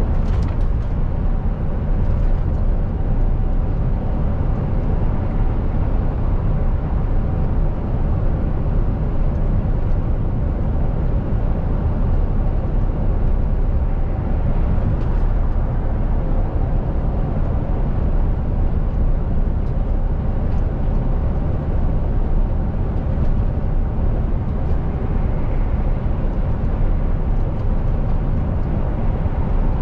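Mercedes-Benz Actros truck's diesel engine and road noise while driving: a steady low rumble that stays even throughout.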